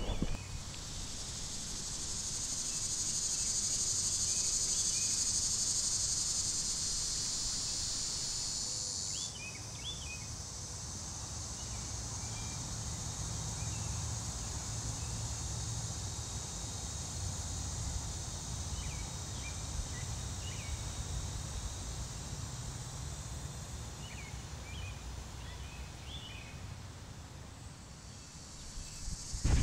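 Steady high-pitched chorus of meadow insects, louder at first and dropping off suddenly about nine seconds in. Short bird chirps come and go over it.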